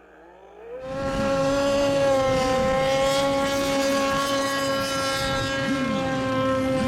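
Radio-controlled racing boat engines running. About a second in, one engine comes in rising in pitch and settles into a steady high whine. Other boats' engines rise and fall in pitch beneath it as they circle during mill time before the race start.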